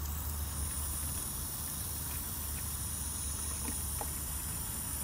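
Water from a garden hose running into a plastic snow-foam bottle as it is topped up, a steady hiss with a low steady rumble underneath.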